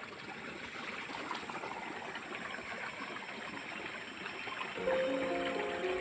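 A steady rushing noise, like running water. Just under five seconds in, background music with sustained notes starts over it.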